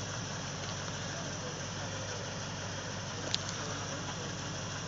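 Off-road vehicle engine idling steadily, with a single sharp click a little over three seconds in.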